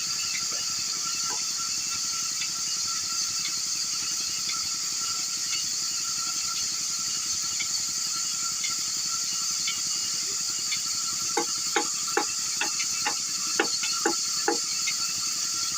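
Steady high hiss throughout. In the second half, a run of about eight sharp taps, roughly two a second: a mallet striking a woodcarving chisel.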